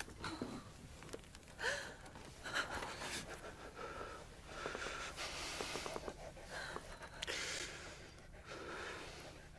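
Soft gasps and breathing: a run of quiet, breathy intakes and exhalations.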